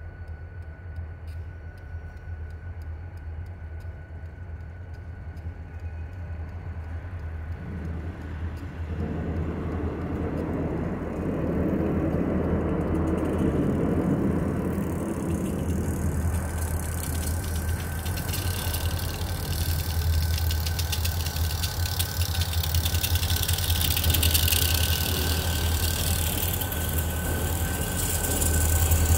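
A pair of New York, Susquehanna & Western diesel locomotives with a covered hopper between them approaching at low speed, their engines droning low and growing steadily louder. From about two-thirds of the way in, a hissing wheel-on-rail noise builds as the train draws close.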